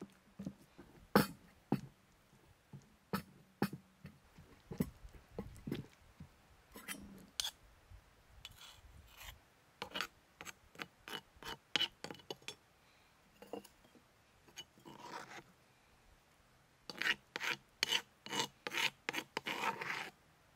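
Food preparation with kitchen utensils: irregular sharp taps mixed with short scraping and rubbing sounds. The taps come faster and closer together over the last few seconds.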